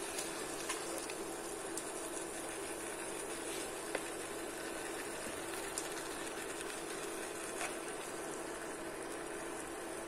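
Pieces of sheep head sizzling steadily in oil and spice paste in a nonstick frying pan while a wooden spoon stirs them, giving a few light knocks against the pan.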